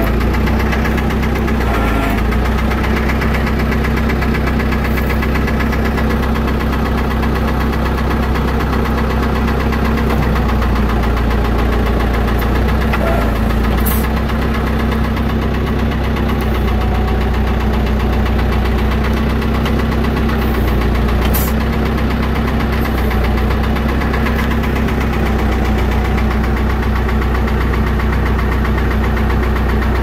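John Deere 450 crawler's engine running steadily at idle while its backhoe hydraulics are tested for leaks after new hoses were fitted.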